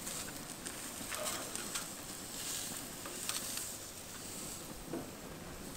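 Faint steady hiss, likely the whole snakehead sizzling on the hot gas-grill grate, with a few light taps as hands press and arrange the fish on the metal grate.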